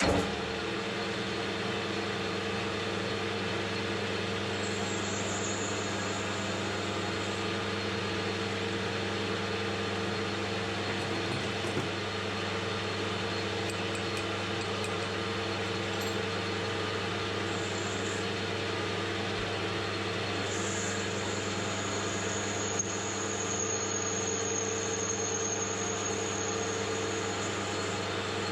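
AL960B metal lathe starts up and runs steadily, turning in reverse while a taper is cut on a 4140 steel collet blank in the 4-jaw chuck. A thin high whine comes and goes over the steady hum, longest for several seconds near the end.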